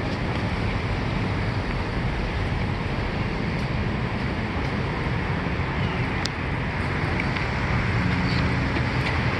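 Steady vehicle and road noise: an even rush with a low engine hum beneath it, and a single short click about six seconds in.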